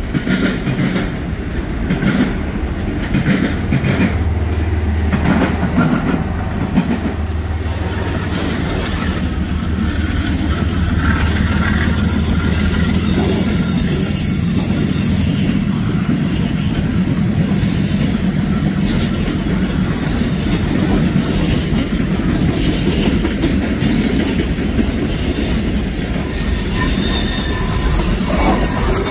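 Freight trains rolling past: a steady rumble and clatter of freight cars on the rails. A diesel locomotive's low engine drone comes in about four seconds in and fades by the middle, and high-pitched wheel squeal rings out around the middle and again near the end.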